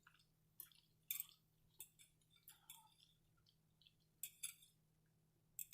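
Soft, close-up eating sounds: scattered wet mouth clicks and chewing, a handful of short sharp ticks a second or so apart.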